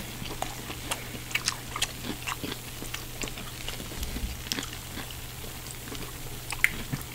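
Close-miked chewing and biting of cheese-covered fried chicken: irregular wet mouth clicks and smacks, over a steady low hum.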